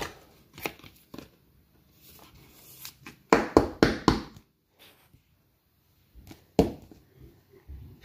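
Plastic rustling and scraping as a sleeved trading card is slid into a rigid plastic toploader, with a quick cluster of sharp scrapes about three to four seconds in and another single one about six and a half seconds in.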